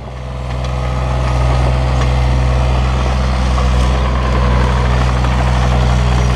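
Takeuchi TB235 mini excavator's diesel engine running steadily as the machine tracks along, growing louder over the first second and then holding steady.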